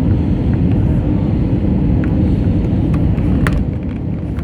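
Steady low rumble of an Airbus A320neo heard from inside the passenger cabin: engine and airflow noise, with a couple of faint clicks near the end.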